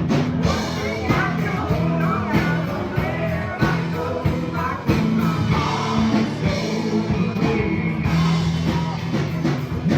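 Rock music with drums, guitar and singing.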